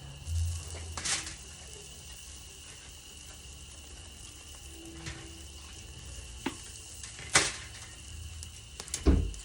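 Bacon-wrapped backstrap poppers sizzling on a hot grill as they are taken off, with several sharp metal clicks and clanks against the grate; the loudest knocks come near the end.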